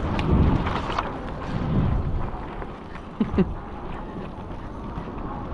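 Wind buffeting the microphone and the knocking and rattling of an electric bike jolting over a bumpy path, with a brief squeak about three seconds in.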